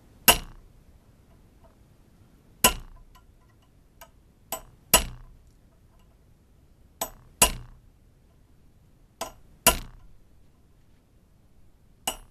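Hammer striking a steel center punch held on the muzzle of a rifle barrel clamped in a vise: sharp metallic strikes, each with a short ring. About five firm blows roughly every two and a half seconds, several preceded by a lighter tap, each setting one punch mark of a decorative pattern around the muzzle.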